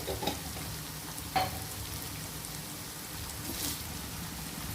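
Onions and ginger-garlic paste sizzling in hot oil in a kadai, a pinch of turmeric just added, with one sharp tap about a second and a half in.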